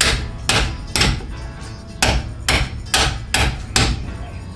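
Hammer tapping on a socket used as a driver to seat a Miata's clutch pilot bearing, with eight sharp metal-on-metal strikes at about two a second and a one-second pause after the third. The bearing is going in but is not yet fully seated.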